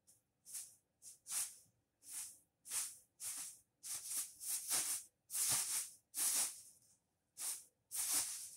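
Bead filling of a fabric bean bag chair rustling in short swishes, about one to two a second, as a cat burrows and paws about inside it; the swishes are loudest around the middle and near the end.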